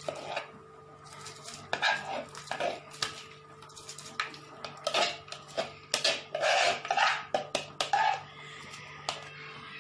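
A metal spoon knocking and scraping against a plastic bowl as drained basmati rice is tipped into a pot of boiling water, with irregular clinks and short rushes of grains falling into the water, busiest in the second half. A faint steady hum runs underneath.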